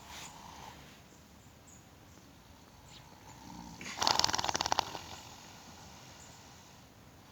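A young horse lying down at rest, snoring: one loud, rapidly fluttering breath about four seconds in, lasting just under a second, with a softer low sound just before it.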